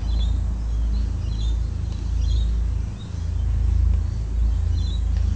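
Steady low-pitched rumble, with faint short high-pitched chirps or squeaks about once a second.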